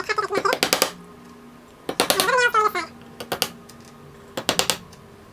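Hammer lightly tapping nails into the pre-drilled holes of a pine nest-box board to start them, in four bursts of quick taps. A short, wavering squeak comes with the first two bursts.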